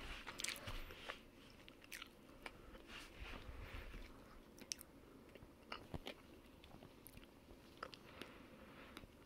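Point tabby cat biting and chewing at the edge of a stack of VHS tapes: faint, irregular clicks and crunches.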